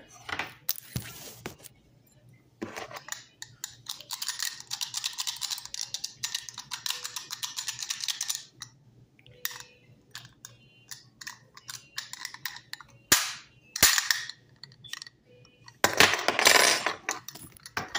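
A butter knife working at a steel combination padlock's shackle: sharp metallic clicks and a stretch of fast, scratchy rattling a few seconds in, as the lock is forced open.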